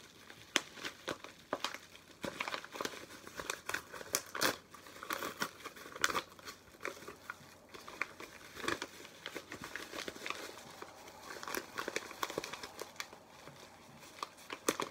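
A paper parcel being crumpled and torn open by hand: irregular crinkling and rustling with sharp crackles and rips as the wrapping is pulled apart.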